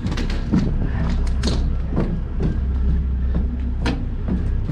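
Compact diesel equipment idling steadily, a low even hum, with scattered knocks and thuds on top.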